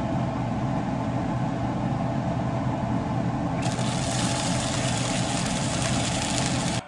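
A steady mechanical hum, with the hiss of gyoza sizzling in an uncovered frying pan joining it about three and a half seconds in; both cut off suddenly at the end.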